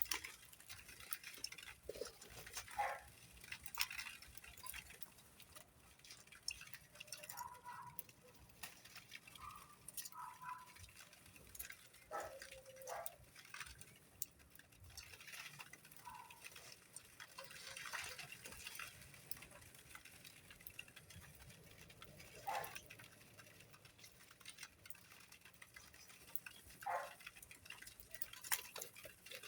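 Birds calling with short, soft chirps, scattered among irregular light clicks and taps.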